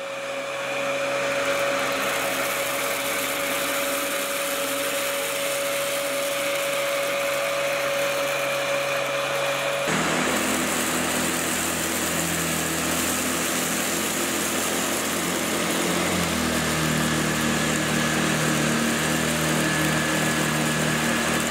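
Upright vacuum cleaners running steadily with a motor hiss and a few held hum tones. The sound changes abruptly about ten seconds in; after that it is the SEBO Felix, with its ET1 powerhead, running along the baseboard.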